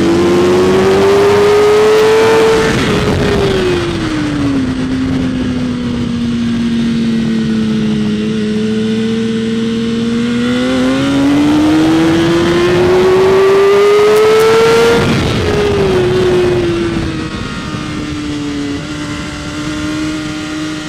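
BMW S1000RR inline-four engine heard from onboard on a race track, pulling hard with the pitch climbing, then dropping sharply as the rider rolls off for a corner, climbing again and dropping a second time near three quarters through before holding steady.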